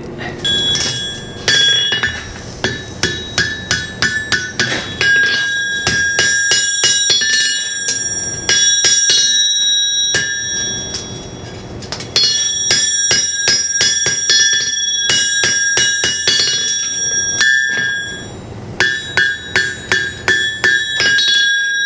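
Blacksmith's hand hammer striking a red-hot horseshoe on an anvil in quick rhythmic runs of blows, each followed by the anvil's high ringing, with two short pauses. The blows are shaping the hot shoe to even it up.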